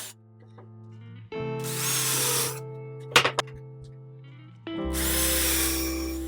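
Power drill boring pilot holes through a thin softwood board in two bursts of about a second or more each, the motor whining steadily under load. There is a short knock between the bursts. Background music plays throughout.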